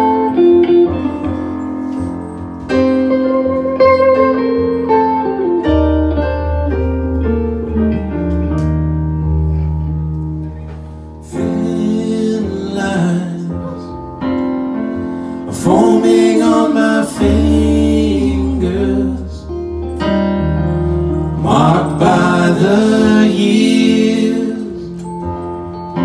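Live band music: electric guitar and keyboard playing together over a steady bass line, an instrumental stretch of a slow rock song.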